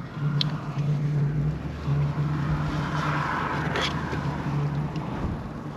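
Steady low hum of a vehicle engine idling, with a brief gap now and then, under wind rushing that swells midway.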